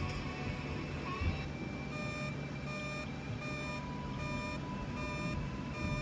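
Background music from a TV weather channel. About two seconds in, a repeating electronic beep starts, short tones coming about twice a second.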